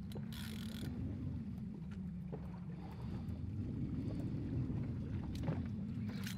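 Steady low rumble of a boat on open sea with wind on the microphone. A couple of faint clicks near the end.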